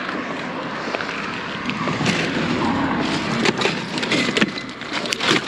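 Rusted bicycle clanking and scraping against a steel bridge guardrail as it is hauled over by hand, with several sharp metal knocks in the second half.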